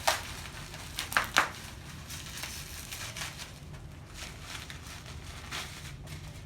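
Makeup palette packaging being handled and pried open by hand: crinkling and rustling, with a few sharp clicks or snaps in the first second and a half.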